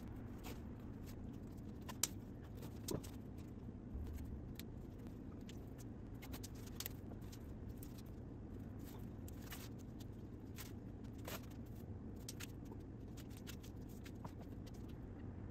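Faint handling sounds of painter's tape being pulled and pressed onto a log wall: scattered small clicks and crackles, the sharpest about two seconds in, over a low steady hum.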